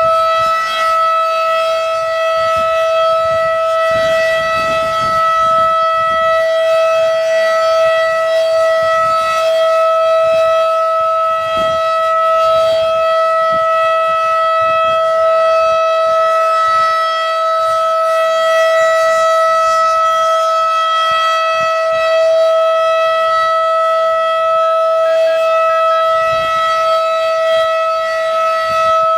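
Federal Signal 2001-DC electromechanical warning siren sounding a steady tone, held at one unchanging pitch.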